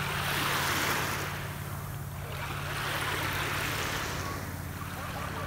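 Small waves lapping and washing over a shallow pebble shore, swelling and fading every two to three seconds, with a faint steady low hum underneath.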